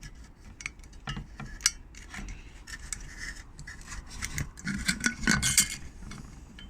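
Hands working on a car headlight assembly: a run of light clicks and short scraping rubs of small metal parts, busier and louder about five seconds in.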